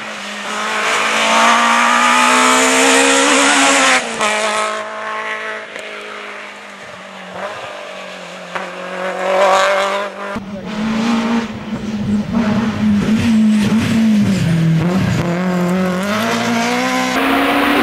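Rally cars driven hard on a tarmac stage, engines revving up and dropping through gear changes. The sound jumps abruptly about four seconds in and again about ten seconds in.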